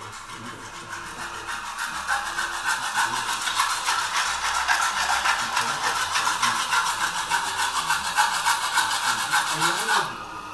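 Rhythmic rasping strokes of a hand tool on wood, a luthier's workshop sound played back through a small speaker. It builds up over the first couple of seconds, runs as a fast, even scraping, and cuts off suddenly near the end.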